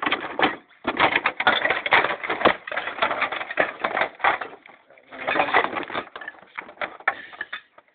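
Rapid, irregular clicking and rattling of plastic and metal parts as an old CRT television is taken apart by hand, with its back cover being worked loose once the last screw is out.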